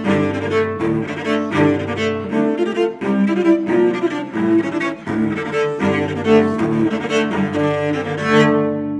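Solo cello bowed in a fast, energetic passage of many quick notes, ending near the end on a final note left ringing and fading.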